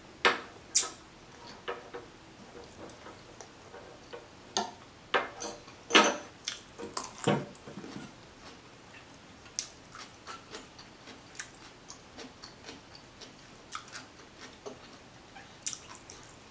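Close-miked eating sounds: irregular crunches and wet mouth clicks of chewing food, louder and more frequent in the first half, fainter and more scattered after.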